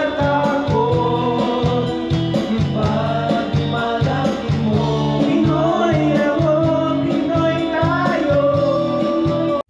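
Karaoke: a man singing a song into a microphone over a backing track with a steady beat, played through the room's speakers.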